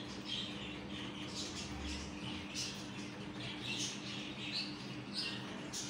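Small pet birds in a wire cage chirping and squeaking faintly in short, repeated bursts over a steady low hum.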